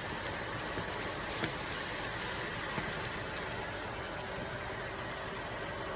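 Hot oil sizzling in a frying pan with hot dogs: a steady hiss with a few faint pops.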